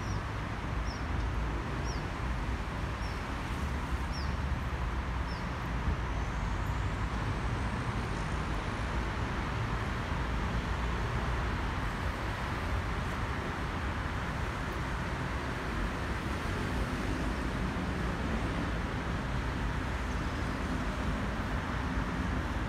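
Jet noise from an Airbus A320neo's CFM LEAP-1A turbofans as the airliner passes overhead at altitude: a steady, even roar that holds its level throughout. A series of short high chirps sounds in the first few seconds.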